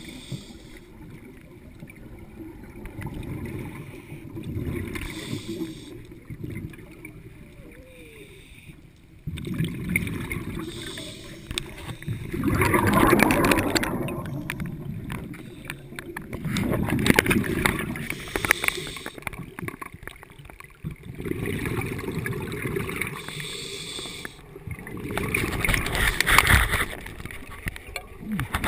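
Scuba diver breathing through a regulator underwater: each exhale is a rush of gurgling bubbles, swelling and fading about every four to five seconds.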